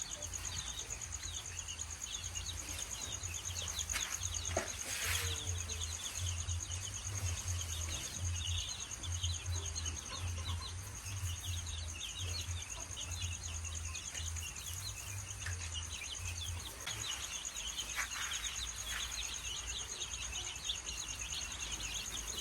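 Many chicks peeping in quick, overlapping chirps, over a steady high whine and a low hum that comes and goes, the hum stopping about three quarters of the way through.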